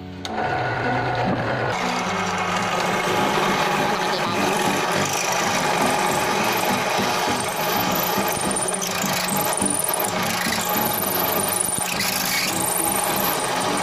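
Fujima bench drill press switched on right at the start, its motor running steadily with a low hum while the bit grinds and scrapes down into a concrete block.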